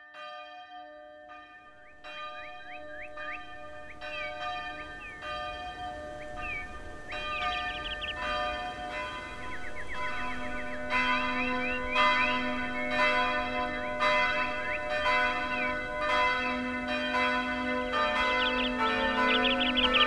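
Church bells ringing, the strikes coming thicker and louder as the peal builds from about eight seconds in. Short high chirps sound over them.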